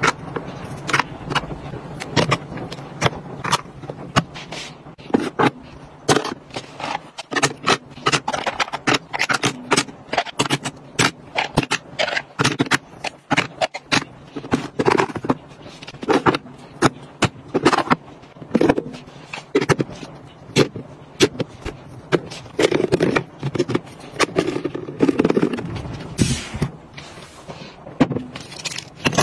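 Lipstick tubes and makeup cases being set down and slotted into a clear acrylic organizer and its drawers: an irregular run of many sharp clicks and taps of plastic and metal on acrylic, with some scraping.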